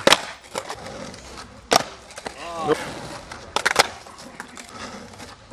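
Skateboard on flat tarmac: sharp tail pops and board clacks from flip-trick attempts, four cracks in all, two of them close together near the end. A brief shout comes about halfway through.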